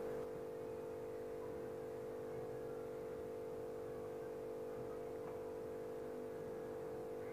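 Steady low hum, a few even tones held without change: electrical mains-type hum under quiet room tone.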